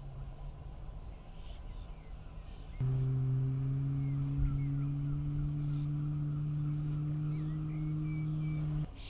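A deep horn sounds one long, steady blast of about six seconds, starting and stopping abruptly about three seconds in.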